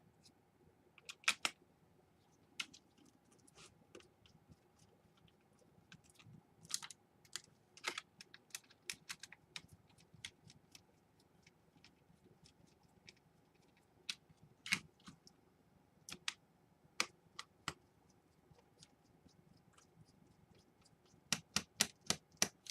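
Irregular small clicks and taps of a screwdriver, screws and plastic laptop parts being handled while a laptop hard drive is fitted and screwed in, with a quick run of clicks near the end.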